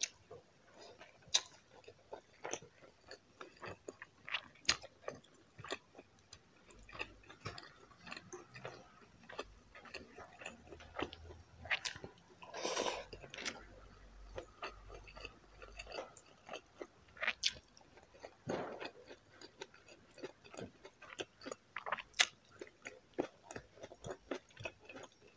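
Close-miked chewing of a mouthful of humba, soy-braised pork, and rice eaten by hand: a stream of soft, irregular clicks from the mouth, with a few louder bites.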